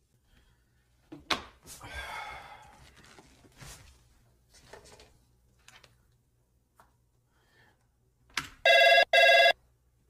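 An incoming call on a phone line rings near the end: two short, loud electronic rings in quick succession. Before it, a knock and rustling come from someone settling in at a desk.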